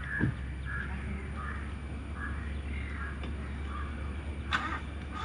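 Birds calling outdoors: a string of short, repeated calls over a steady low background rumble, with a single sharp knock about four and a half seconds in.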